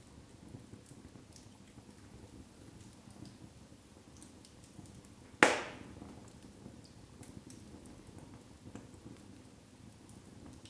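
Wood fire of split logs burning in a fireplace: a low steady rush of flame with scattered faint crackles, and one loud sharp pop about halfway through.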